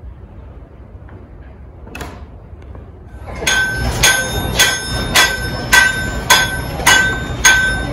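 Blacksmith's hammer striking an anvil: eight ringing blows at a steady pace of about two a second, starting about three and a half seconds in.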